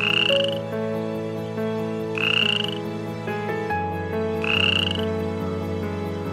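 A short croaking call, rising slightly in pitch, heard three times about two seconds apart, over soft sustained background music chords.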